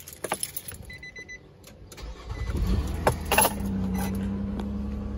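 Nissan Quest minivan's V6 engine cranking and starting about two seconds in, then settling into a steady idle. Before it comes a few clicks and a brief chime.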